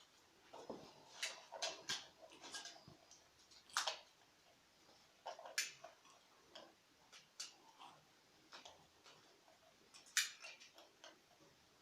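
Faint, irregular clicks and taps of hand tools and small switch parts being handled, a dozen or so sharp ticks with short pauses between them.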